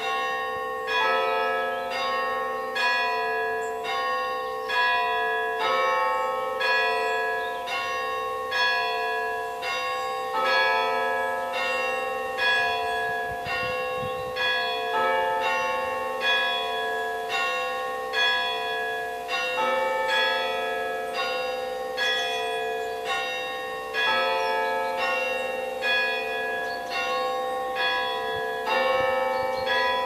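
Church bells of Brechin Cathedral ringing: several bells struck in turn, about one strike a second, each ringing on into the next.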